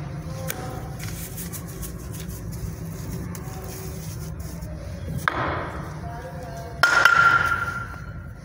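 A brick being set into wet cement mortar by hand: a short scrape about five seconds in, then a louder, sudden scrape or knock with a ringing tone that fades over about a second near the end. Voices talk in the background over a steady low hum.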